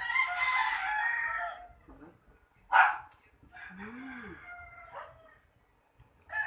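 Animal calls: one long, drawn-out call of about a second and a half that falls away at the end, then a short, sharp call about three seconds in and a fainter call after it.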